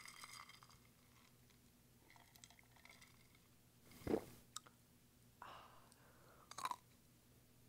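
Faint chewing and crunching of ice in the mouth, a few scattered short crunches with the loudest about four seconds in.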